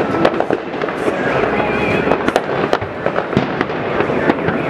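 Many fireworks and firecrackers going off at once: a dense, unbroken clatter of overlapping bangs, with a number of sharper, louder cracks standing out at irregular moments.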